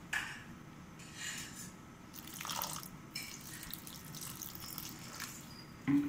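Water poured in a thin stream from a plastic jug into a steel bowl, splashing onto a coarse spice paste while a hand squeezes and mixes it wet.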